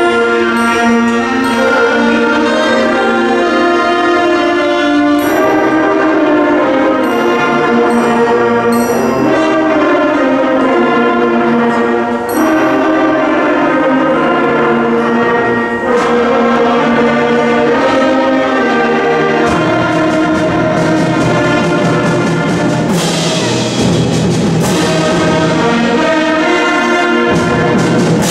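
Middle school concert band playing, with trombones and trumpets holding chords over mallet percussion. Two crashing percussion strikes ring out near the end.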